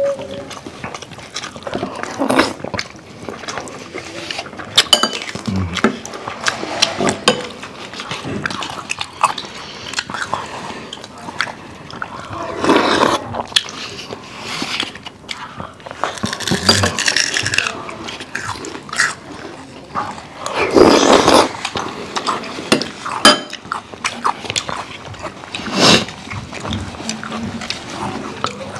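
Close-miked eating sounds: chewing and mouth smacks from people eating, with spoons and chopsticks clicking against plates and bowls, and a few louder, longer mouthfuls.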